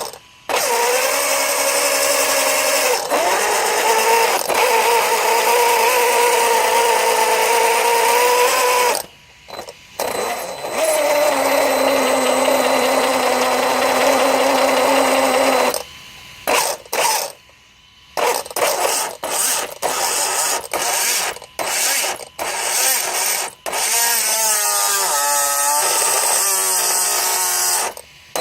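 Losi DBXL-E electric buggy's motor and drivetrain whining under throttle, held in two long runs and then given many short stabs of throttle near the end. The noise comes from worn motor bearings, which caused the buggy's power loss and grinding.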